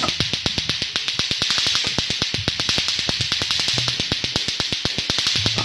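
Lato-lato clacker toy: two plastic balls on strings knocking together in a fast, even clicking, about eight to ten clacks a second, over a steady high hiss.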